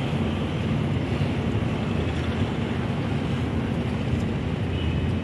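Steady low rumble of wind buffeting the microphone, mixed with general harbourside noise.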